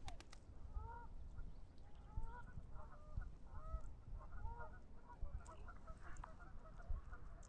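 A flock of birds calling: many short rising-and-falling calls overlapping one another, over a low rumble.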